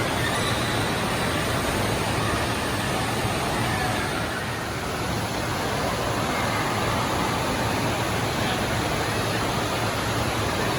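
Steady rush of water in an indoor water park, with faint voices mixed in.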